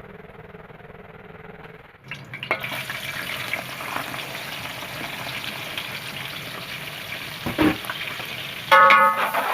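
Food sizzling and crackling in hot oil in a pan, starting suddenly about two seconds in after a faint hum. Near the end a loud pitched tone with several overtones comes in over it.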